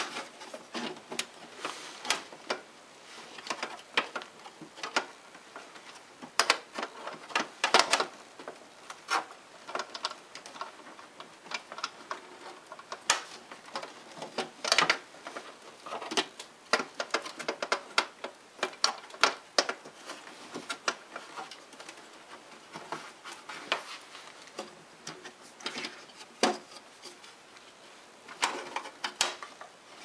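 Irregular clicks, taps and clinks of a hand tool, nuts and cable hardware being handled against a MIG welder's sheet-metal case, some coming in quick little clusters.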